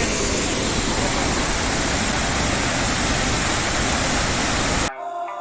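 Large waterfall roaring with a steady, loud rush of falling water, which cuts off suddenly near the end as guitar music comes in.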